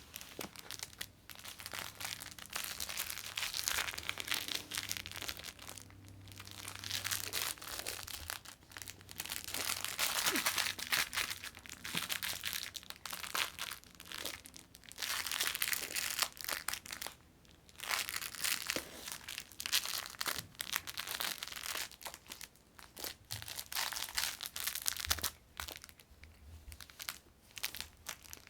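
Crinkle cat toy rustling and crackling in irregular bursts with short pauses as a cat bats, bites and kicks at it.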